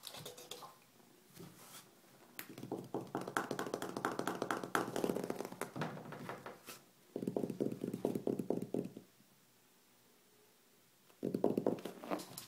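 Rapid finger taps and scratching at the bottom edge of a wooden door, close to the microphone, coming in three bursts of quick taps with pauses between them.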